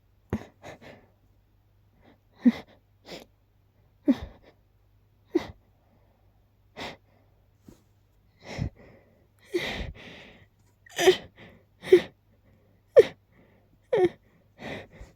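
A person's sneeze buildup: a string of short, catching voiced gasps about a second apart, coming closer together in the last few seconds and breaking into sneezes.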